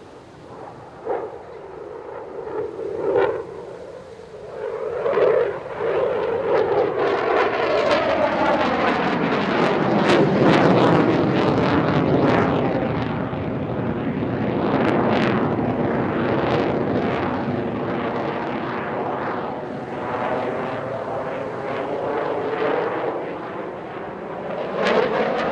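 RAF Eurofighter Typhoon jet with its twin EJ200 turbofans in afterburner. The jet noise swells in over the first several seconds, then stays loud with a sweeping, shifting tone as the jet passes.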